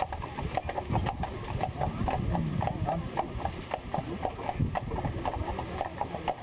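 A quick, even clip-clop of footfalls on a hard path, several knocks a second.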